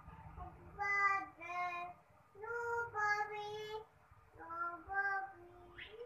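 A child singing a tune in three short phrases of held, high notes, with brief pauses between the phrases.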